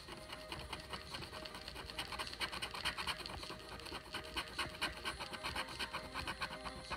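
Wooden stylus scratching the black coating off a scratch-art board in quick, short back-and-forth strokes: a rapid dry scraping, densest in the middle.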